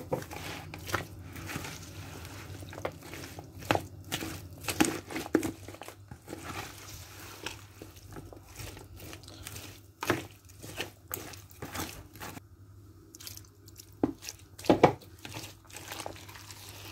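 A spatula stirring and folding pieces of naan through a thin, wet gram-flour batter in a large bowl: irregular squelching and scraping, with sharper knocks of the spatula against the bowl, the loudest about ten and fifteen seconds in.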